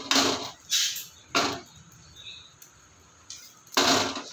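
Frying pan scraping and shifting on the gas stove's metal burner grate as it is tilted and swirled to spread the oil: a few short scrapes, a pause, then one more near the end.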